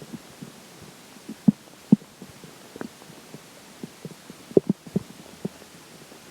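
A person's stomach and intestines gurgling while digesting a meal. The gurgles come as irregular short pops, loudest about one and a half seconds in, again just before two seconds, and in a cluster a little after four and a half seconds.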